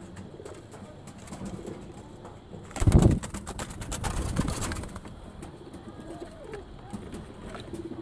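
Domestic pigeons cooing low in the loft. A loud rustling scuff about three seconds in is the loudest sound, and a rougher stretch of rustling follows a second later.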